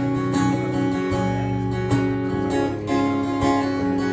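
Acoustic guitar strumming chords in a steady rhythm, played live.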